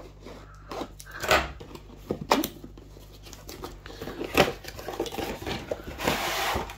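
Cardboard box of a plastic model kit being opened and its contents handled: a few separate knocks and scrapes, then about a second of rustling near the end.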